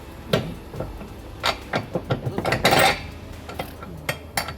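Steel tow-hitch parts and hand tools clinking and knocking as the hitch block and its hardware are handled and fitted. A string of sharp separate clanks, with a longer scraping rattle just under three seconds in.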